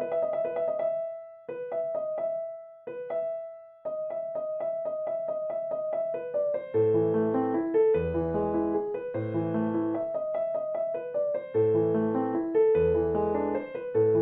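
Background piano music: a melody of repeated notes, with a few held notes that die away in the first few seconds, and low bass notes coming in about seven seconds in.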